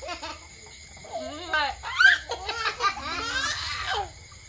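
A young child laughing in several high-pitched bursts. The loudest burst comes about two seconds in, and a longer run of laughter follows shortly before the end.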